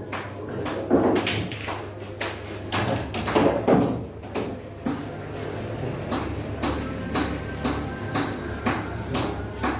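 A run of sharp, irregular clicks and taps, about two or three a second, with a faint room echo.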